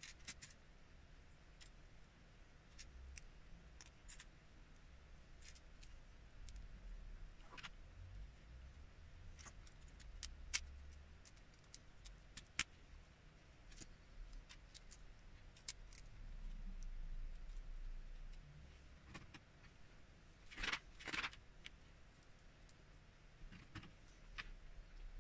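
Plastic Lego bricks clicking and clacking as pieces are handled and pressed together: faint, scattered sharp clicks, with a brief louder clatter about three-quarters of the way through.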